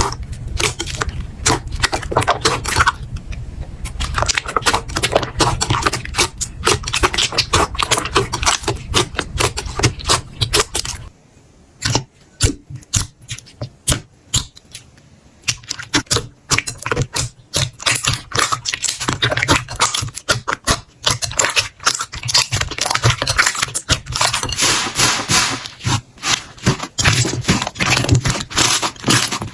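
Slime being squeezed and poked by hand, making a dense run of rapid crackling clicks and pops. About eleven seconds in the sound changes to sparser clicks for a few seconds, then dense crackling returns.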